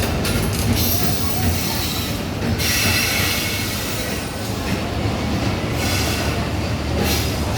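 Bangladesh Railway train moving along the platform: a steady low rumble of wheels on rails, with a harsher high-pitched noise from the wheels for about a second and a half, around three seconds in.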